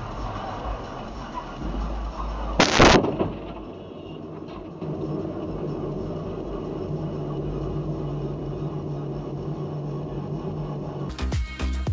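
Head-on car collision: one short, loud crash of crumpling metal and plastic about three seconds in, as a white Lexus sedan's front end strikes the car carrying the dashcam. A steady hum follows.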